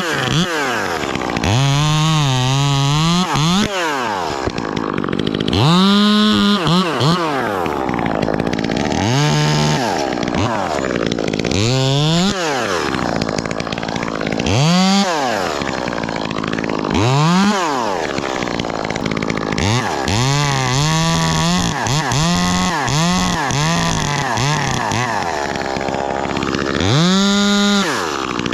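Ported Echo 2511T top-handle chainsaw, a small two-stroke, revving up sharply and dropping back to idle about a dozen times. Several times it is held at full throttle for a second or two as it cuts through pine limbs.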